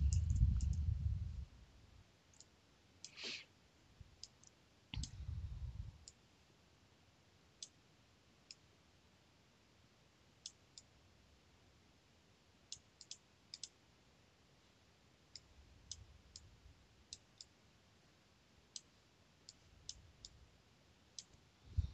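Quiet, irregular clicking of a computer mouse, single clicks scattered every second or so, with a soft low rumble near the start and another about five seconds in.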